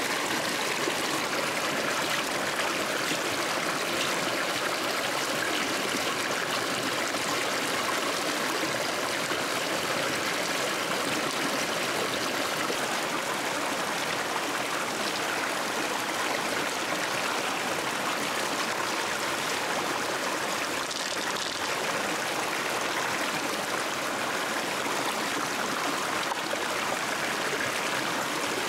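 River water flowing steadily past the rocks, a continuous rushing trickle.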